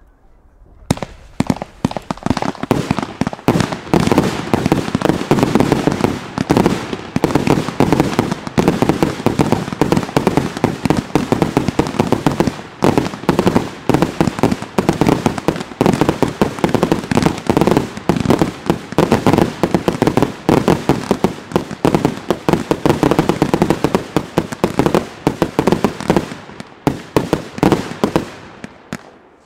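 Aerial fireworks firing in rapid succession: a dense, continuous barrage of launches, bangs and crackling bursts that starts about a second in and thins out near the end.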